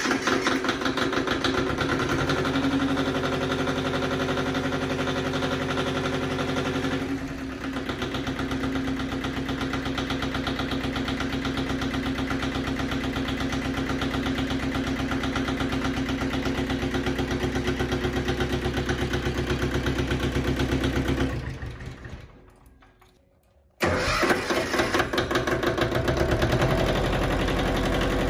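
Yanmar 155D tractor's diesel engine firing up and running steadily, its tone changing slightly about 7 s in. About 21 s in it winds down and stops, and about 24 s in it is abruptly running again.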